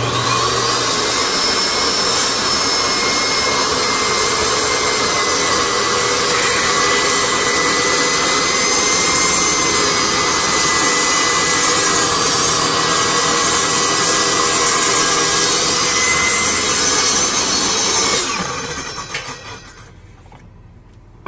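Benchtop table saw switched on and spinning up, then running with a steady whine as its blade rips a wooden board along the fence. About 18 seconds in it is switched off and winds down over a couple of seconds.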